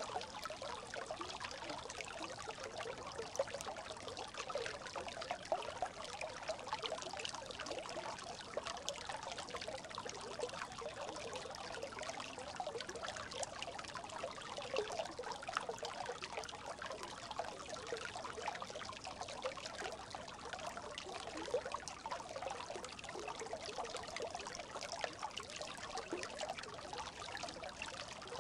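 Small brook babbling: a steady, unbroken run of little trickles and gurgles of flowing water.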